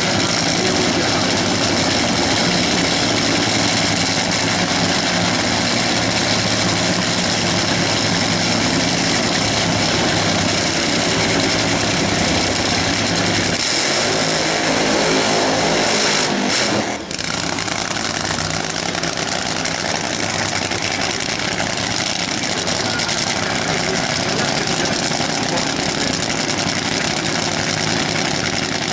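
Nitro drag racing engine idling loudly and steadily, with a brief change in its sound about halfway through.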